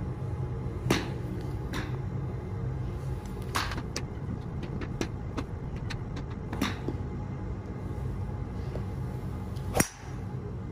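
A Royal Collection BBD306V 5-wood fairway wood striking a golf ball off a range mat: one sharp hit, the loudest sound, near the end. Fainter sharp clicks from other shots come earlier over a steady low hum.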